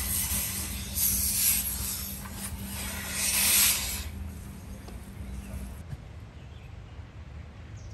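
Hissing noise that swells about a second in and again about three seconds in, then fades after about four seconds, over a low steady hum that stops near the end.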